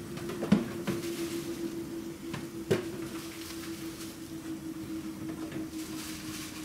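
Two sharp knocks about two seconds apart, over a steady low hum.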